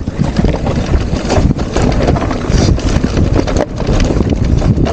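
Wind rushing over the microphone while a mountain bike descends a rocky trail, its tyres and frame rattling and knocking continually over loose stones.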